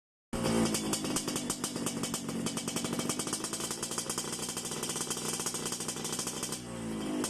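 Yamaha RX-King two-stroke single-cylinder engine running at a steady fast idle through an aftermarket under-slung exhaust, a rapid, even rattle of firing pulses. Near the end the sound dips and the engine starts to rev, the pitch rising.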